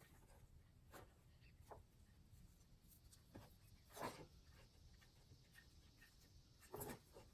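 Near silence with a few faint, short rubbing and tapping sounds, the loudest about four seconds in: hands pressing a new hook-and-loop pad firmly onto a random orbital sander's base.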